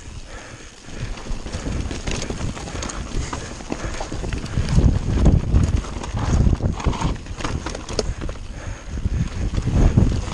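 Kona mountain bike clattering and rattling as it is ridden fast down a rocky trail, a dense irregular run of knocks from tyres and frame striking stones. Quieter for the first second, then louder and rougher from about four seconds in.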